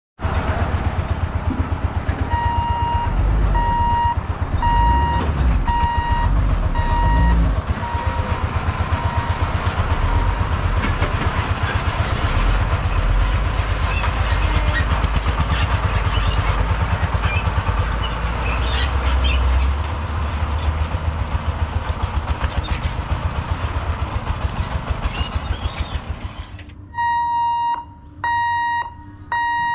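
Road traffic crossing the tracks: a loaded lorry's diesel engine and other vehicles running, with a steady beep repeating for a few seconds near the start. A few seconds before the end the traffic noise stops and the level crossing's electric boom barrier warning buzzer beeps in an even on-off rhythm, about once a second, as the booms come down.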